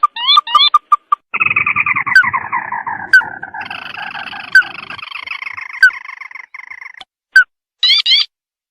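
Recorded lure calls of the sintar mata merah bird. Quick series of short notes sliding upward in pitch, then from about a second in a long chattering trill that falls in pitch and runs on as a denser chatter for several seconds. A few more short rising notes come near the end.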